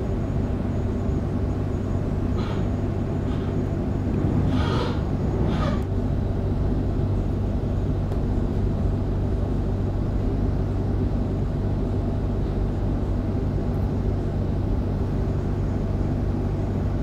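Steady low rumble and hum of an electric suburban train running between stations, heard from inside the carriage. A few short, high squeaks come in the first six seconds.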